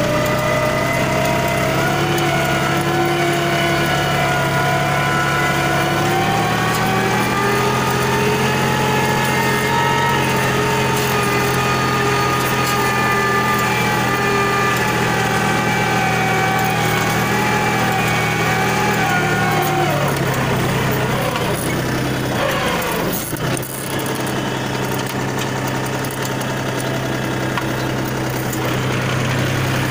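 Mahindra 265 tractor's three-cylinder diesel engine running steadily under load while pulling a cultivator through the soil. About twenty seconds in its note falls, dips briefly, then settles into a steady lower run.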